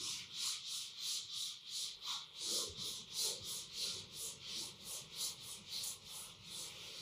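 Whiteboard eraser rubbed back and forth across a whiteboard, wiping off marker writing: a rhythmic swishing rub of about two to three strokes a second.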